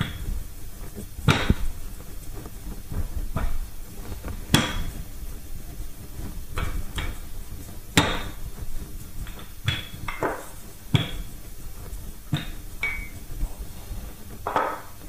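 Wooden rolling pin rolling out pastry dough on a wooden board: a low rumbling roll with a dozen or so sharp, irregular knocks.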